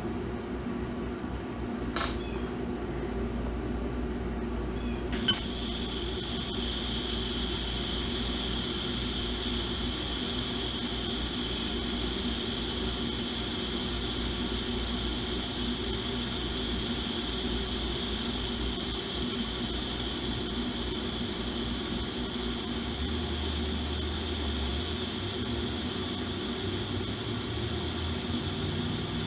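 TIG welding on a cracked motorcycle frame: a sharp click about five seconds in as the arc is struck, then a steady high-pitched hiss from the arc, over the low hum of the welding machine.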